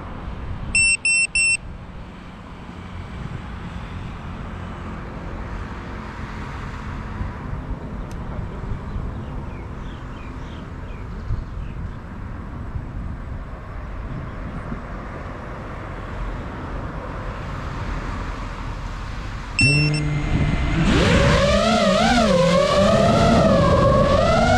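Steady roadside traffic noise, broken about a second in by a few short high electronic beeps. Near the end more beeps come, then a sudden, much louder high whine from an FPV racing drone's motors, sliding up and down in pitch as the throttle changes.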